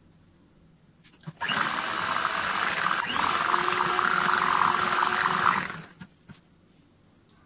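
Electric hand mixer running, its twin beaters whipping chocolate brownie batter in a metal bowl. It starts about a second and a half in, runs steadily for about four seconds, and stops about six seconds in.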